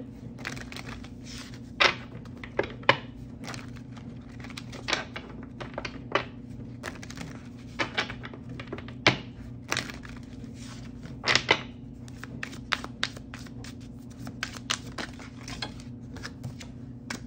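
Tarot cards being handled and set down on a table: irregular sharp taps and clicks, some in quick clusters, over a steady low hum.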